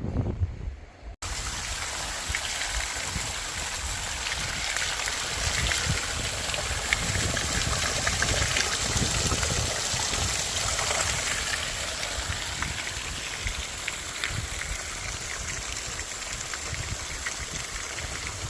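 Strong wind blowing across the microphone: a steady rushing hiss with an uneven, gusting low rumble, starting after a brief break about a second in.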